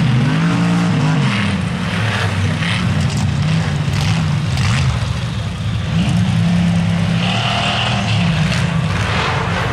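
Off-road race vehicle's engine running and revving, its pitch rising and falling repeatedly.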